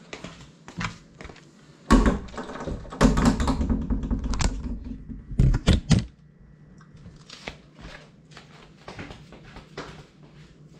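Small FPV drone breaking loose and tumbling to the floor after a crash. About two seconds in comes a burst of knocks, rattling and rumble that lasts until about six seconds, with the hardest hits at the end. After that only faint scattered ticks are heard.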